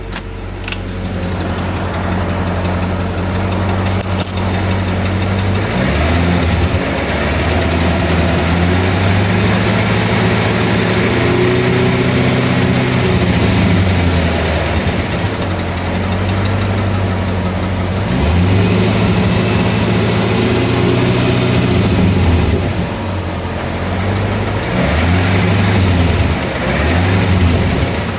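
1996 GM LT4 5.7-litre V8 idling and revved up several times, each time falling back to idle, with a ticking noise that the owner is trying to trace.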